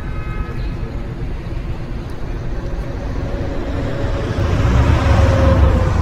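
Road traffic with a heavy truck passing close by: a steady low rumble that swells about four seconds in, with engine and tyre noise peaking and the engine note dropping slightly as it goes past.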